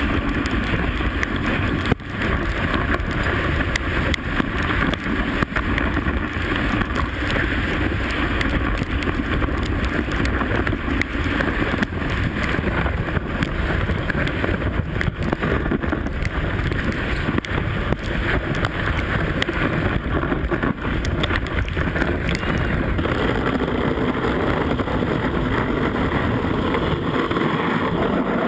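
Dogsled runners sliding over packed snow with wind on the sled-mounted camera's microphone: a steady rushing hiss with faint irregular rattles.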